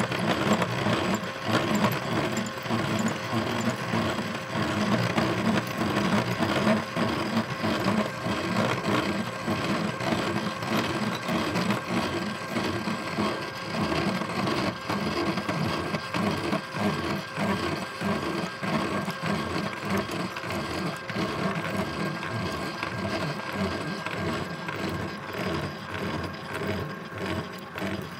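Drill press with its bit cutting into metal: a steady motor tone under a fast, rough grinding chatter, easing off slightly near the end.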